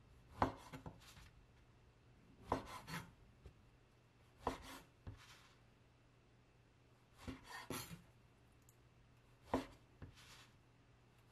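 Kitchen knife cutting through slices of white sandwich bread onto a wooden cutting board, trimming off crusts and cutting the bread into squares. Each cut gives a sharp knock of the blade on the board followed by a few lighter taps, five times, about every two seconds.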